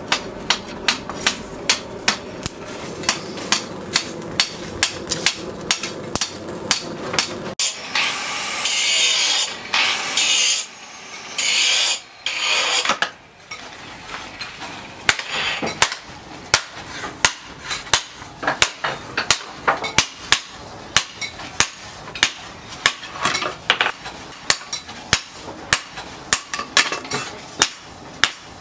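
Hand-hammer blows forging a piece of steel cut from a tractor's disc plough on a steel anvil, striking steadily about twice a second. The blows are interrupted for several seconds in the middle by a loud hissing noise.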